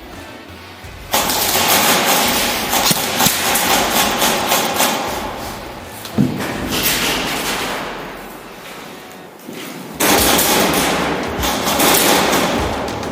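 Airsoft guns firing rapid full-auto bursts, a dense rattle of shots that starts suddenly about a second in, eases off, then starts again suddenly near the end.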